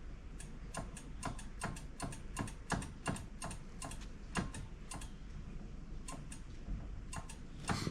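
A run of sharp, light mechanical clicks, about three or four a second at first, then slowing and thinning out, with a louder click near the end.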